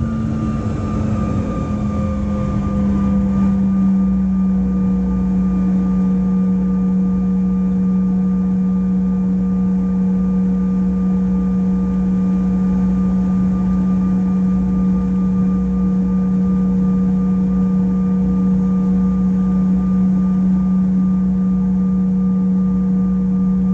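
Bombardier CRJ-900's rear-mounted General Electric CF34 turbofans heard from inside the cabin while taxiing: a steady engine whine over a low drone. In the first few seconds the whine settles slightly lower in pitch, then holds steady.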